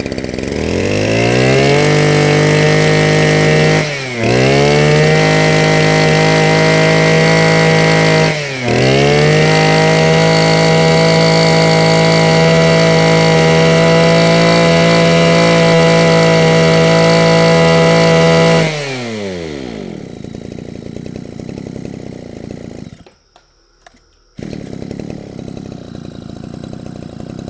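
Mitsubishi TL201 20cc two-stroke brush cutter engine revving up and held at high throttle. It drops briefly and picks straight back up twice, then falls away about 19 seconds in.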